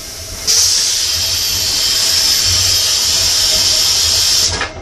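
Vacuum bio-toilet of a Russian passenger railway car flushing. A steady hiss starts abruptly about half a second in, lasts about four seconds, then fades out. It is an ordinary flush, without the loud vacuum click these toilets sometimes give.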